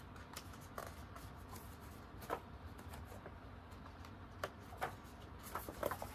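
Faint rustling and a few soft clicks of paper pages being handled and turned in a picture book, over a low steady hum.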